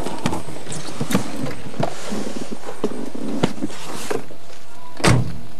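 Car door being opened, with scattered clicks and knocks from the latch and handling, then one heavy thump about five seconds in as the door is shut.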